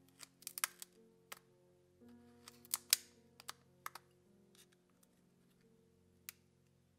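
Sharp light clicks and taps of a thin metal blade against an iPod touch's cracked glass screen and housing as it is pried along the edge, in two clusters about half a second and three seconds in, and once more near the end. Soft background music with sustained tones runs underneath.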